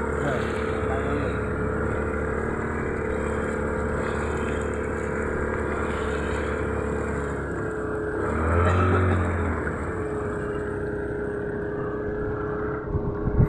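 Small fishing boat's engine running steadily under way, with a steady hum. About eight seconds in it briefly swells louder, its pitch rising and falling back, before settling again.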